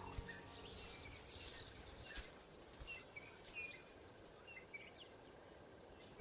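Faint bush ambience with scattered short, high bird chirps, several in quick succession in the middle.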